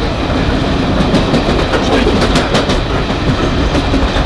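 Passenger train carriage running at speed, heard from inside: a steady rumble of wheels on the rails, with a quick run of clicks about halfway through as the wheels pass over rail joints.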